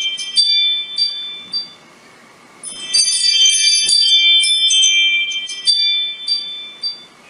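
Ring doorbell motion-alert tone: a chime melody of high, ringing bell-like notes that stops about two seconds in, then plays through again after a short pause.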